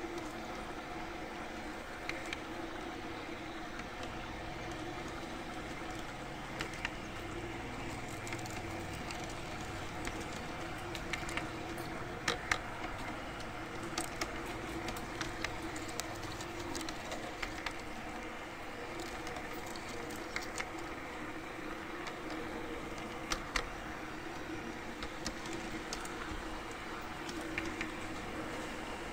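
Garden-railway model train running along its track, heard from on board: a steady electric motor hum and gear whine with scattered sharp clicks from the wheels on the rails.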